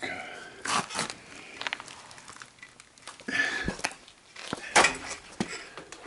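Irregular scraping, crunching and rustling of a person crawling over a gritty concrete floor, about half a dozen louder scuffs with quieter gaps between.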